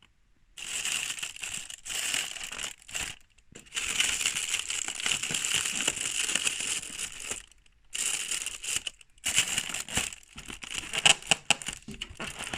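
Packaging rustling and crinkling as it is handled, in bursts of a second or two with short pauses between, and a few sharper clicks near the end.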